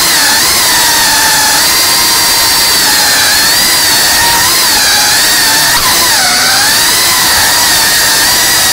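FPV quadcopter's electric motors and propellers whining loudly, the pitch wavering up and down as the throttle is worked.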